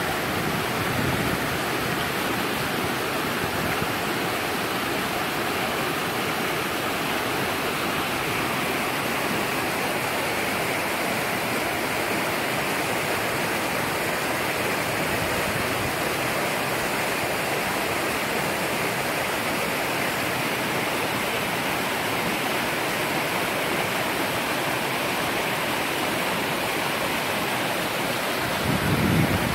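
Mountain stream rushing over boulders and small rapids: a steady, unbroken rush of white water close by. A low rumble swells in near the end.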